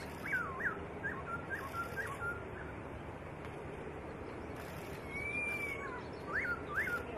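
Black-throated laughingthrush singing: a quick run of looping whistled notes, then after a pause one long, slightly arching whistle followed by a few more looping notes near the end.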